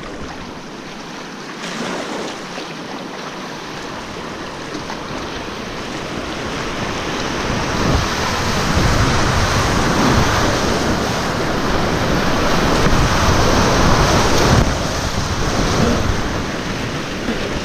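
Rushing whitewater of a river rapid, heard from a kayak running it. The noise builds over the first half, is loudest in the middle, and eases off somewhat a few seconds before the end.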